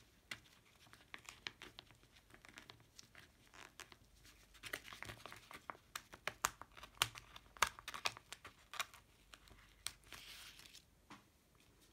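Sheets of glitter letter and number stickers being handled and searched through: irregular rustling with many small sharp crackles, thickest in the second half.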